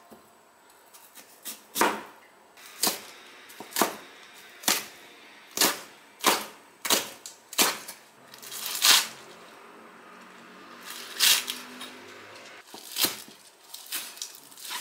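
Chef's knife cutting white radish and green onions on a cutting board: separate sharp knocks of the blade striking the board about once a second, with a pause partway through and a quicker run of cuts near the end.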